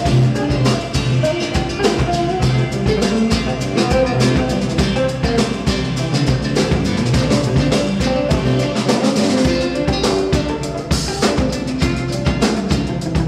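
A drum kit and an electric bass guitar playing an instrumental jam together: busy drum hits over a walking bass line.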